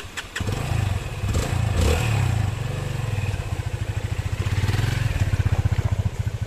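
Motorcycle engine running with a steady, even pulsing beat as the bike rides a rough dirt track.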